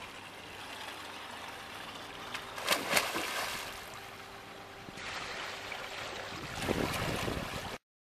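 A person diving head-first into a swimming pool: a loud splash about three seconds in, over steady outdoor wash of water. Another loud burst of noise comes near the end, and then the sound cuts off abruptly.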